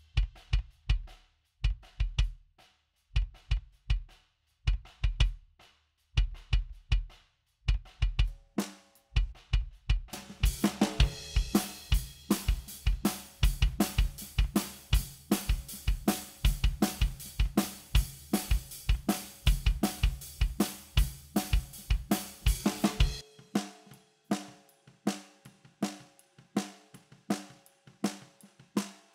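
Acoustic drum kit recording played back through the VSM-4 tube and triode/pentode saturation plugin. For the first ten seconds kick and drum hits come in short phrases with pauses; about ten seconds in the full kit plays with hi-hat and cymbals; near the end the kick drops out, leaving drum hits that each ring with a steady tone.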